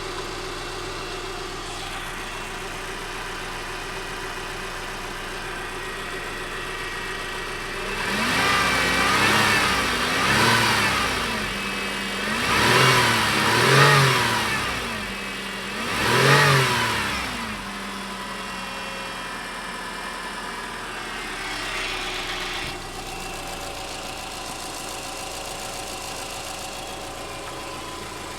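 Car engine idling, then revved briefly about five times, each rise in pitch falling back, before settling to idle again. The owner is asking whether the engine has a knock.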